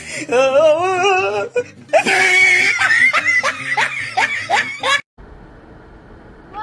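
A person laughing hard, with a shrill squeal about two seconds in and then rhythmic bursts of laughter. The laughter cuts off suddenly about a second before the end, leaving a faint steady background noise.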